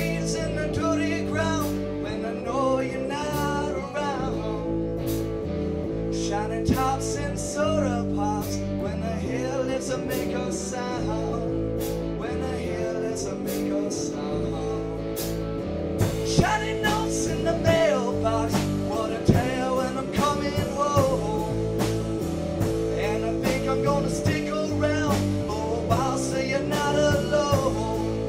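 Background music: a song with singing and guitar over a steady beat, the drums getting busier about halfway through.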